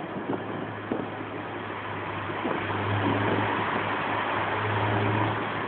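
Honda S2000's four-cylinder engine running through a K&N air filter and a home-built exhaust: a steady low drone over a broad hiss, swelling louder twice in the middle.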